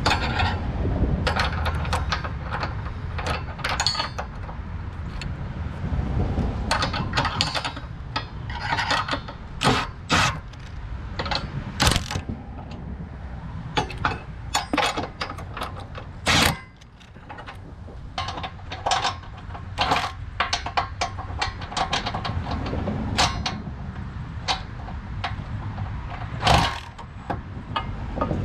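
Irregular metallic clicks and clinks of a ratchet wrench and nuts as they are run onto and tightened on a trailer hitch's mounting bolts, with handling knocks against the vehicle's underbody.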